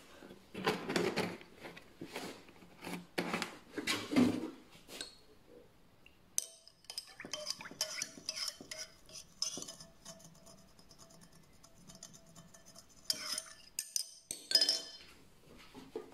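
A glass straw stirring a milky drink in a glass cup. A few louder stirring sweeps come first, then many quick clinks of the straw against the glass, each leaving a faint ring.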